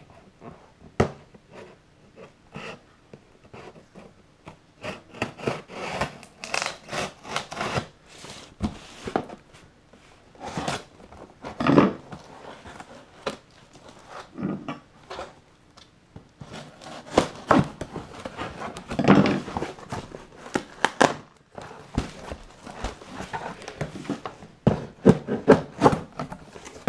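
A cardboard box being opened by hand: irregular scraping, rubbing and sharp knocks of cardboard and packaging, busier in stretches.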